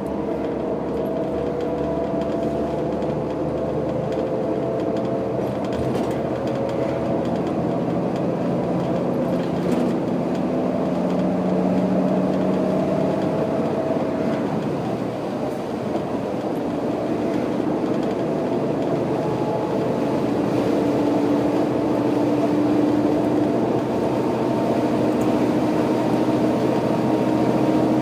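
Setra 315 UL bus's diesel engine pulling under load, heard from inside the bus, its pitch rising slowly as it gathers speed. About halfway through, the sound dips briefly as the driver shifts up on the manual gearbox, then the engine note climbs again in the next gear.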